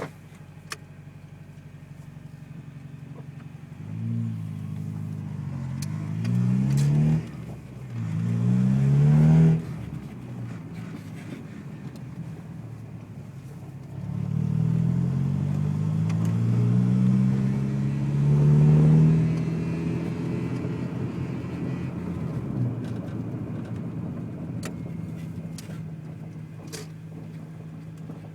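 Honda B16 four-cylinder engine and gearbox under power, the engine note climbing in pitch three times between spells of steady running, with a few faint ticks. The owner hears an odd gearbox noise under power that sounds like a zip tie being done up.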